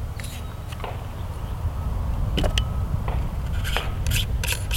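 Griffin Revolution 9 9mm suppressor being reassembled by hand, its metal parts threaded and pushed back together: scattered small clicks and scrapes that come quicker near the end, over a steady low rumble.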